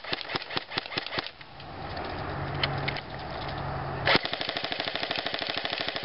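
Airsoft gun firing: a string of shots at about six a second that stops a little over a second in. After a short lull, a loud crack comes about four seconds in, followed by a fast full-auto rattle through the last two seconds.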